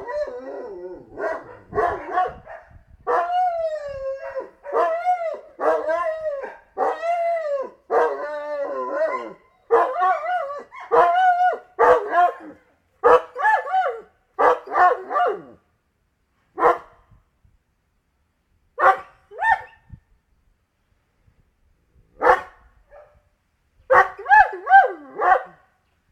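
A dog barking and howling in a fast run of drawn-out calls that rise and fall in pitch. After about fifteen seconds the calls thin out to single barks spaced a few seconds apart, with a last quick cluster near the end.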